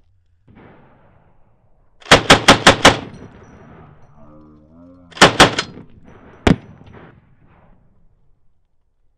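M249 5.56 mm belt-fed light machine gun firing short bursts: five rapid shots about two seconds in, a burst of about three shots around five seconds, then a single shot.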